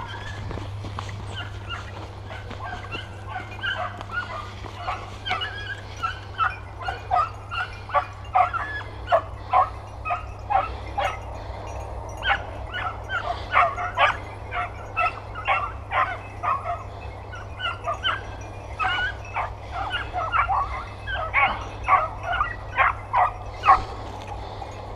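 Young hunting dogs, puppies five and six months old, barking and yipping over and over, about two calls a second, with the calls growing louder and denser from about a third of the way in.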